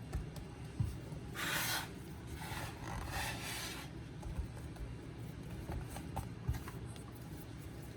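Hands rubbing and shaping portions of dough on a floured surface. There are two bursts of rubbing, a short one about a second and a half in and a longer one around three seconds in, with a few light taps.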